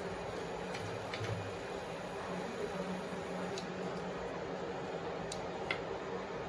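Coconut oil heating in a pan on the stove: a steady hiss with a few faint ticks.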